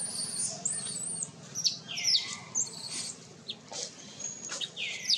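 Baby monkey squealing and screeching over and over in high-pitched, wavering cries, several dropping sharply in pitch.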